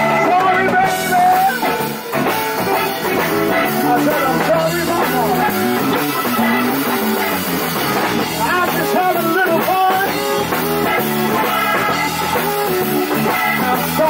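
Live blues band playing, with a man singing into a microphone over electric guitar, keyboards, bass and drums.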